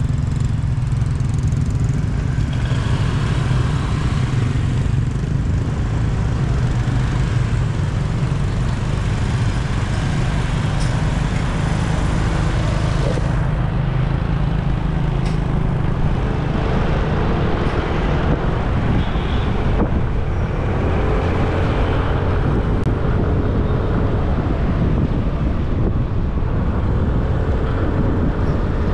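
Motor scooter riding along a road, its small engine running steadily under a constant rush of road and wind noise. In the second half a wavering engine note rises slightly above the noise.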